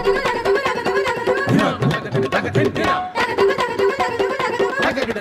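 Instrumental interlude of a Tamil film song, without vocals: quick hand-drum percussion under a busy melodic instrumental line.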